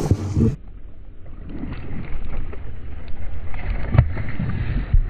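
A hooked bass splashing at the surface as it jumps and slaps back onto the water: a loud splash at the start and a sharp slap about four seconds in, over a low rumble of wind on the microphone.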